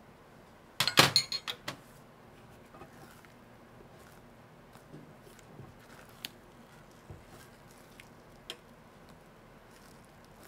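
Metal kitchen tongs clattering in a quick run of sharp clinks about a second in, then faint scattered taps of a silicone spatula in a nonstick pan as the omelette is folded.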